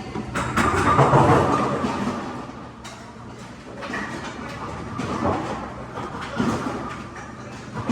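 Bowling-alley pinsetter machine cycling: a steady motor hum under repeated clattering and knocking of pins and mechanism, loudest about a second in and again around five seconds in.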